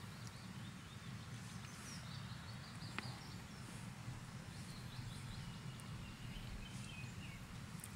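Faint birds chirping over a steady low background rumble, with a single soft click about three seconds in.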